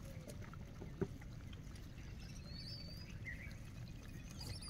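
Quiet outdoor ambience: a steady low rumble, one sharp click about a second in, and a few faint high bird chirps around the middle.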